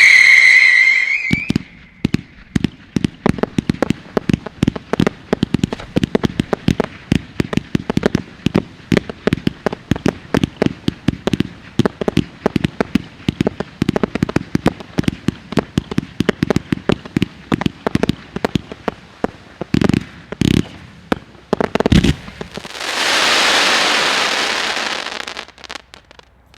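Low-noise retail fireworks: a loud whistling shriek dies away in the first second and a half, then a long run of sharp crackling pops, several a second, for about twenty seconds, with a few heavier cracks near the end and a hiss lasting a couple of seconds just before the close.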